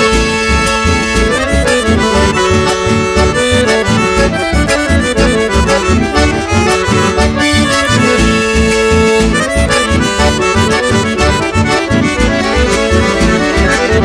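Instrumental passage of a chamamé song: accordion carrying the melody over a steady, regular beat.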